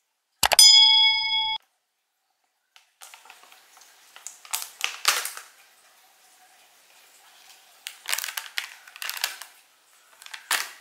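A mouse click and a short bell-like chime, a subscribe-button sound effect, about half a second in. Then crackling and snapping in scattered bursts as thin clear plastic dome lids are pried off takeaway dessert cups.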